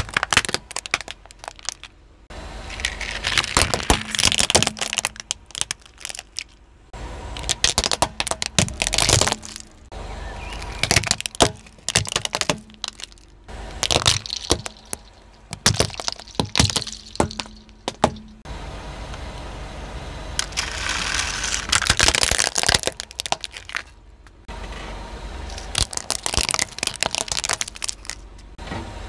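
Car tyre rolling slowly over hard plastic toys, crushing them in runs of sharp cracks and crunching snaps, with short quieter pauses between the runs.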